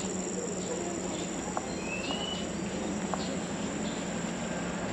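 Insects trilling steadily at a high pitch in a tropical highland garden, with one short rising whistle about two seconds in.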